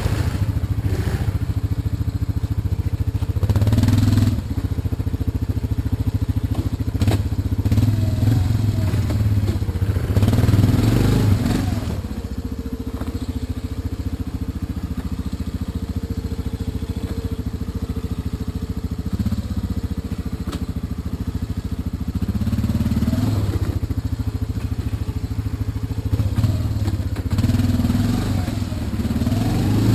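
ATV engine running as the quad is ridden along a rough trail, rising in pitch and loudness in several swells of throttle.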